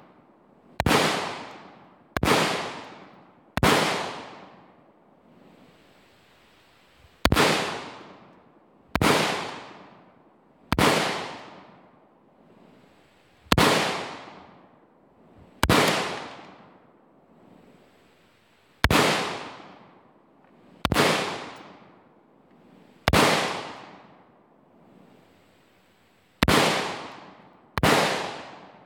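Radical Firearms AR pistol with a 7.5-inch barrel firing .223 Tulammo: thirteen single shots spaced one to three and a half seconds apart, each followed by about a second of echo dying away.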